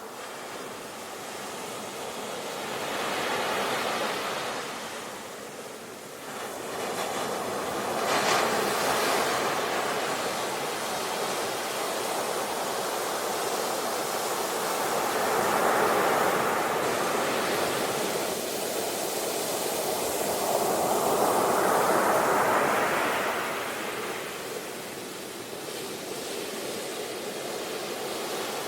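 Ocean waves breaking and washing on a shore: a continuous rush of surf that swells and falls back every few seconds, with several louder surges.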